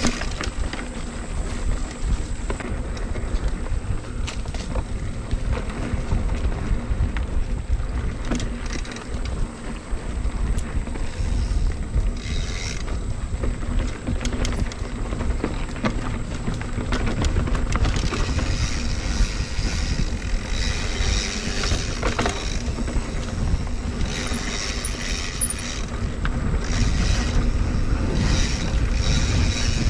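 Mountain bike being ridden along a dirt trail: the bike clattering and rattling over the ground, with steady wind rumble on the microphone.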